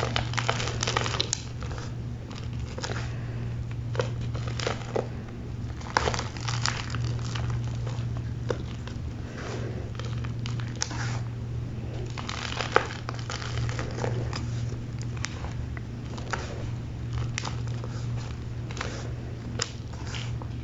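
A pressed cake of gym chalk being crushed, crumbling and crunching in irregular crackles, some sharper and louder than others, over a steady low hum.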